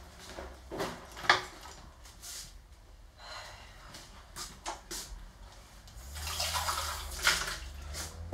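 Wall-mounted kitchen tap running for about two seconds near the end, water rushing into the sink. Before it come a few scattered knocks and clicks of things being handled, the loudest a sharp knock just over a second in.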